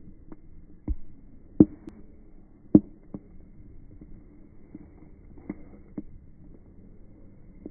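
Wood bonfire crackling: scattered sharp pops over a steady low rush, the three loudest in the first three seconds.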